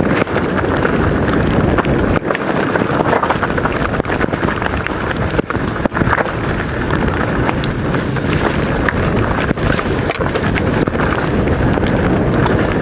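Mountain bike descending a rocky singletrack at speed: steady wind rushing on the microphone over tyres crunching across loose stones, with frequent knocks and rattles from the bike.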